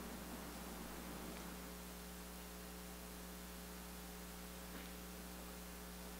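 Steady low electrical mains hum, with no other sound standing out.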